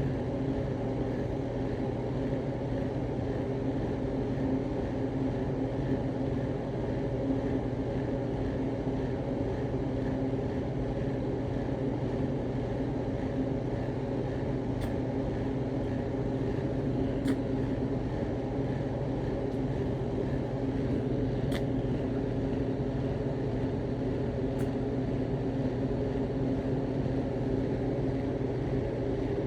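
A steady low mechanical hum that holds the same pitch and level throughout, with a few faint clicks in the second half.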